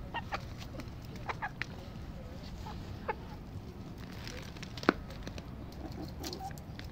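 Young chickens making short, soft clucks while they feed, with a single sharp click just before five seconds in.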